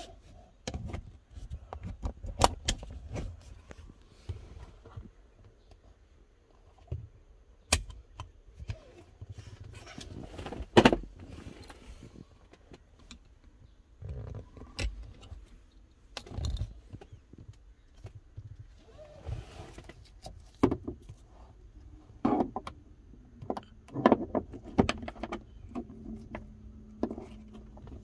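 Metal seat-belt latch plates and buckles clicking and clattering in a string of sharp clicks and clanks, the loudest about eleven seconds in, as a rear center three-point belt is released with a screwdriver and stowed in its roof housing.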